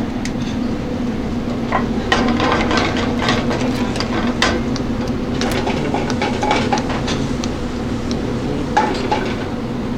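Metal sauté pans and utensils clattering and clinking on a commercial gas range, many sharp knocks over a steady low hum.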